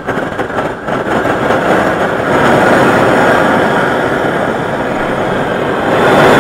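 SearPro handheld propane searing torch lighting and burning with a steady rushing jet flame. It starts suddenly, builds over the first two seconds and gets louder again near the end.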